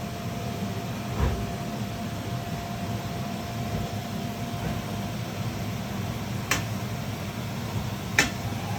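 Steady fan-like hum and hiss with a faint steady tone. There is a dull thump about a second in and two sharp clicks near the end.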